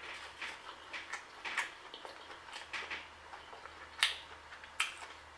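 Close-up mouth sounds of someone chewing food with lips smacking: a run of short clicks, a few a second, with two sharper smacks about four seconds in.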